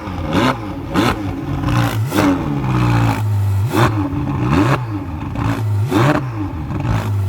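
Ferrari 488 Spider's twin-turbo V8 revved while stationary: about six short throttle blips, each climbing and falling back quickly, with a steady idle in between.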